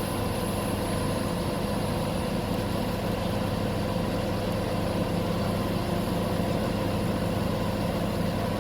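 Diesel engine of an XCMG QY25K5A truck crane running steadily at a constant speed.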